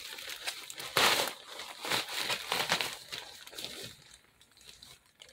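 Clear plastic packaging bag crinkling and rustling as it is handled, in several bursts, the loudest about a second in, dying down after about four seconds.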